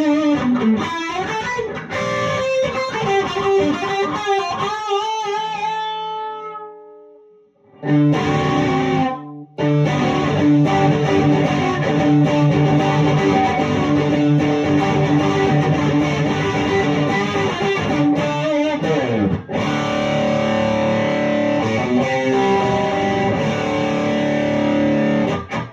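Electric guitar, a Charvel HH Strat-style, played through a Friedman amp's overdriven dirty channel into a 2x12 cabinet: distorted lead lines with string bends, a held note that dies away, then ringing distorted chords with a quick downward slide in the middle.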